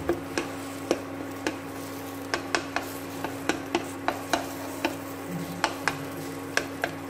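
A spoon stirring and scraping egg and minced pork in a nonstick frying pan, with irregular sharp clicks, about two or three a second, as it knocks the pan. A faint sizzle of the oil and the steady low hum of the induction cooktop run underneath.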